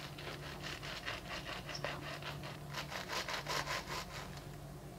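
Kitchen knife sawing back and forth through a crisp, pan-toasted garlic cheese bread sandwich, the crust crunching and scraping with each quick stroke, about five a second. The strokes grow louder in the second half and stop shortly before the end.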